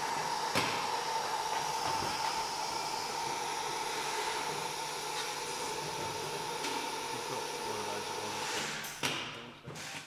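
Steady hiss and whine of a Dalmec pneumatic manipulator's vacuum gripper holding a carton, with a light click about half a second in. It fades out near the end.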